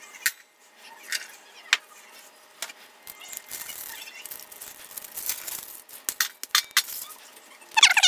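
Peppermint candy canes being snapped into pieces by hand and dropped into an enamel pot: a series of sharp, separate clicks and clinks of hard candy against the pot.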